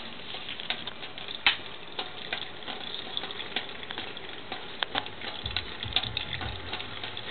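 A thin stream of tap water running into a stainless steel sink, with irregular wet clicks and splashes as a cat drinks from the stream.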